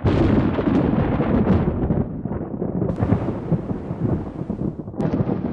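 Thunder rolling and crackling loudly, with a deep rumble. A sharp new crack comes about three seconds in and another near the end.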